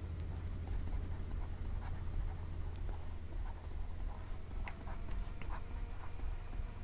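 Stylus writing on a tablet: faint taps and scratches, clearest in the second half, over a steady low electrical hum.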